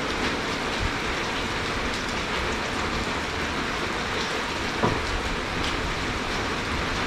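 Heavy rain falling steadily with a dense, even hiss, with a single sharp knock about five seconds in.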